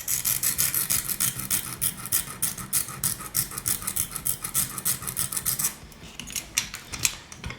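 Hand file rasping quickly back and forth on a small copper contact piece, taking off a little more metal so it fits the track's tabs. The strokes stop about six seconds in, followed by a few light scrapes.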